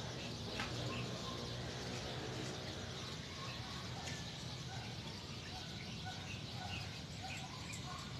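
Birds chirping, with short calls repeating more and more often from about three seconds in, over a steady low hum.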